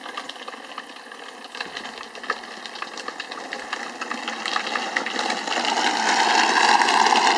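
Hard plastic wheels of a toy ride-on car rolling fast over asphalt, a steady rattle with many small clicks that grows louder from about halfway as it approaches.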